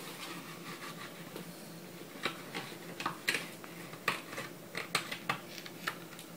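A dozen or so light, irregular clicks and rubbing scrapes, mostly from about two seconds in, over a faint steady hum.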